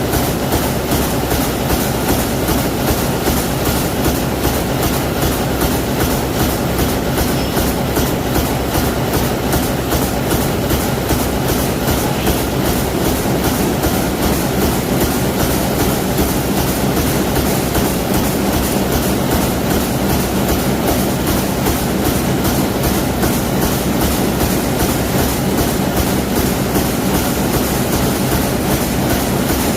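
Mechanical press machine running continuously, its strokes making a loud, fast, even clatter.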